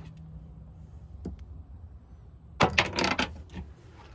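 A brief clatter of knocks and clinks, metal objects being handled, about two and a half seconds in, over a low steady hum. A single click comes a little over a second in.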